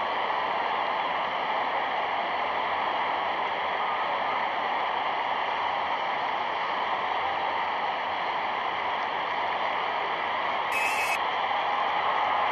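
Steady hiss and surface noise from a 1938 newsreel's optical film soundtrack, with no distinct events, and a brief high crackle about eleven seconds in.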